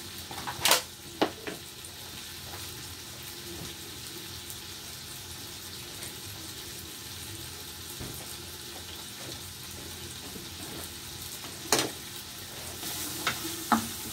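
Pieces of chicken sizzling steadily in oil in a frying pan. A few sharp knocks come about a second in, and more near the end as a wooden spatula starts stirring the pan.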